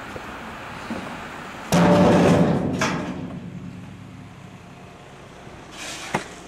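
Roof demolition: a sudden loud crash with a ringing rumble about two seconds in that dies away over a second or so, a sharp click just after, and a short knock near the end.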